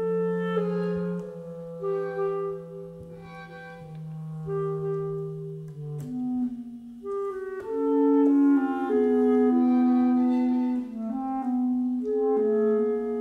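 Contemporary chamber music for a septet of clarinet, bass clarinet, mandolin, guitar, violin, viola and cello, with a clarinet prominent. Long held notes sound over a low sustained note that drops out about six seconds in, and the music swells louder about two seconds later.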